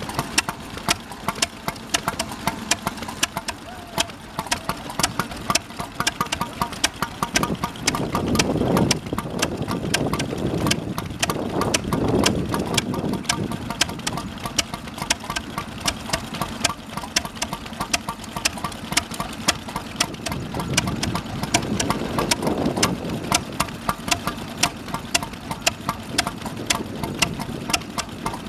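Vintage stationary engine running steadily, with an even, rapid train of sharp clicking beats, several a second.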